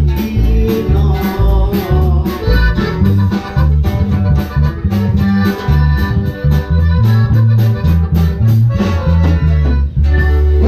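Live band playing amplified Latin dance music, with a steady beat and a busy bass line. The music breaks off briefly near the end, then a held low note begins.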